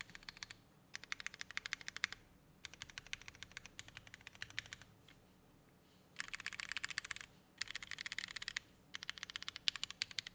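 Monsgeek M5 mechanical keyboard with lubed Cherry MX Black linear switches on an aluminium plate and GMK keycaps, typed on quickly in runs of keystrokes broken by short pauses. Two runs past the middle are denser, the keystrokes coming almost without a break.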